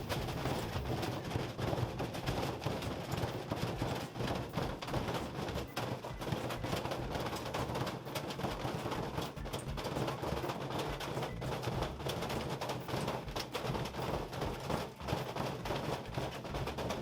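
Washing machine running at full power with watermelons in the drum: a steady low hum under constant irregular knocking and rattling.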